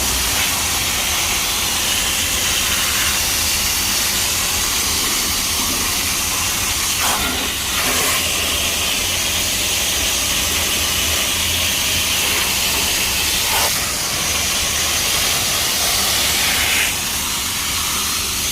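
Steady hissing of a spray jet, with a low hum underneath. The jet breaks off briefly about seven and fourteen seconds in, and its tone shifts near the end.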